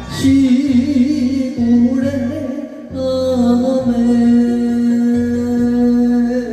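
A man singing an enka ballad into a microphone over a karaoke backing track with a steady bass beat; his voice wavers through a phrase, then holds one long note through the second half.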